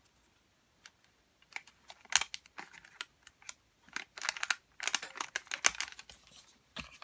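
Handling of a strip of glue dots on its paper backing: irregular light clicks and crinkling rustles as dots are peeled off. They start about a second and a half in and come thickest in the second half.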